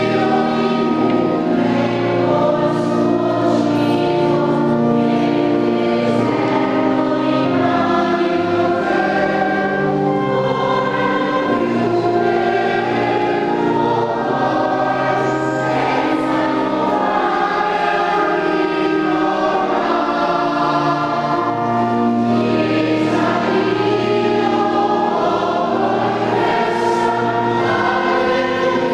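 Church choir singing a sacred hymn, with long held notes that run on without a break.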